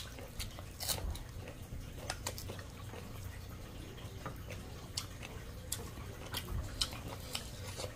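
Quiet, scattered clicks and smacks of eating by hand: fingers working rice and curry, and chewing.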